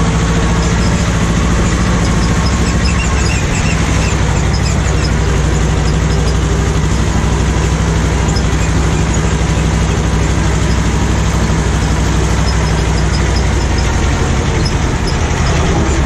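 Ursus C-330M tractor's two-cylinder diesel engine running steadily. Its low note shifts slightly about three and a half seconds in.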